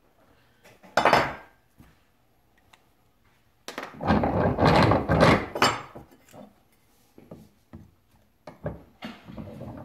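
Workshop handling noises at a bench vise: a short knock about a second in, then a couple of seconds of metal clunking and rattling as the vise is worked and the steel knife blank is set in its soft jaws, with a few lighter knocks near the end.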